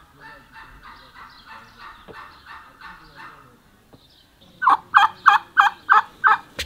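Domestic turkey calling in a series of six loud, sharp notes, about three a second, after a fainter run of similar rhythmic calls in the first half.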